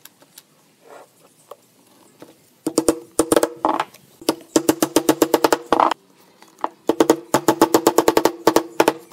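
Hammer driving small nails into the edge of a wooden frame: three runs of quick blows, several a second, each ringing briefly in the hollow frame.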